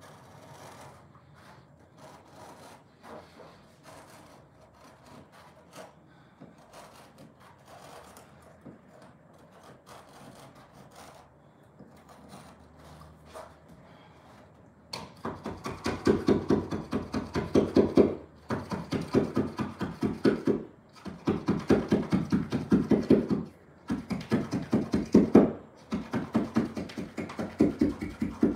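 Carpet being worked along the skirting board by hand with a carpet fitter's tool: rapid back-and-forth rasping strokes in bursts of two to three seconds, starting about halfway in after faint scratching.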